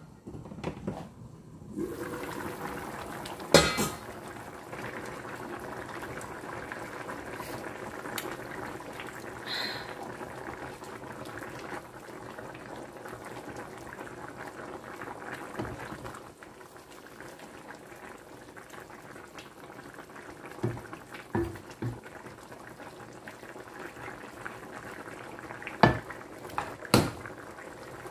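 Chicken soup bubbling at a steady boil in a stainless-steel pan. Sharp metal clanks of cookware break in: one loud one about three and a half seconds in, and a few more near the end.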